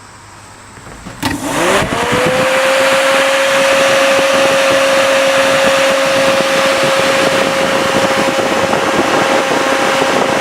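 Electric radiator cooling fans jumped straight to power with a cable: a click about a second in, then the fans spin up with a rising whine that levels off into a steady whine over loud rushing air.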